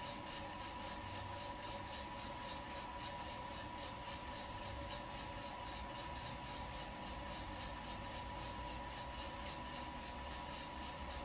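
Kaleido M10 Sniper Pro electric coffee roaster running steadily, its fan and rotating drum giving an even whir with a thin steady high tone. The beans are browning, before first crack, so no cracking is heard.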